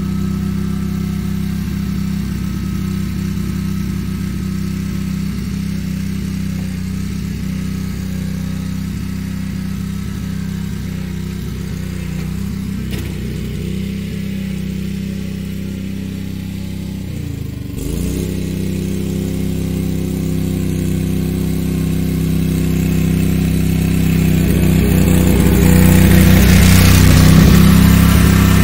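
Riding lawn mower engine running steadily as the mower is driven around. It grows louder over the last third as the mower comes close.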